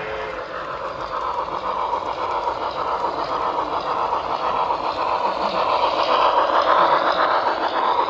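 HO-scale model train running on the layout's track: a steady rushing noise laced with fine rapid clicks, growing louder and peaking about six or seven seconds in.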